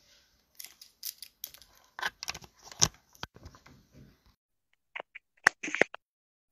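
Handling noise from a phone held close to its microphone: a run of rustles and sharp clicks, then a few louder clicks near the end.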